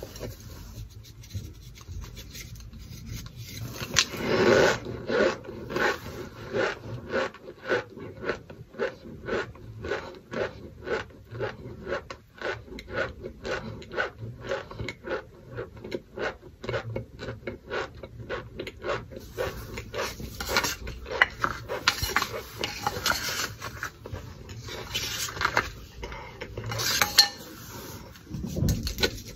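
Crunchy chewing of a mouthful of toasted cornstarch chunks, a steady run of about two crunches a second, with louder, denser crunching about four seconds in and again in the last third.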